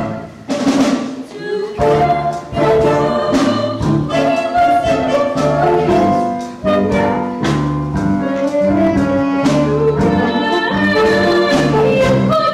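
Jazzy show-tune band music with brass and drum kit playing an instrumental passage, notes changing to a steady beat.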